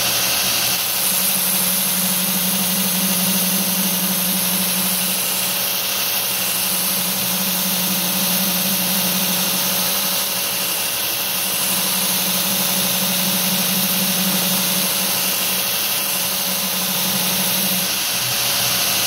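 Belt grinder running at about 4,100 RPM while a knife blade is hollow-ground against its 10-inch solid contact wheel in a grinding jig: a steady hiss of the abrasive belt with a low grinding hum that breaks off briefly about halfway through and stops near the end.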